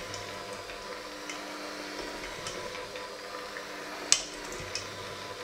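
Electric hand mixer running with its beaters in a stainless steel bowl, the beaters ticking against the metal, with one sharp knock about four seconds in.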